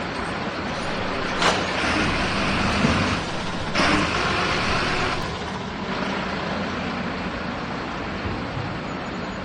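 Garbage truck engine running steadily while collecting bins, with two loud bursts of air hissing, about a second and a half in and again near four seconds in.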